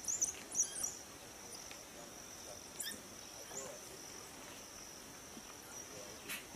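Steady high drone of insects, like crickets, with a few short, high chirping calls in the first second and a single rising call about three seconds in.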